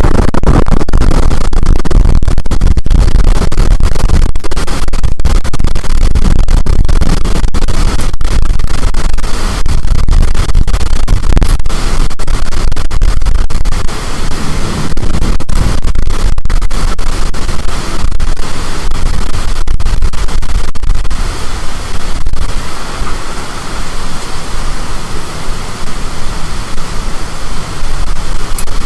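Storm wind buffeting the microphone in gusts: a loud, rushing noise heavy in the low end, easing a little after about 22 seconds.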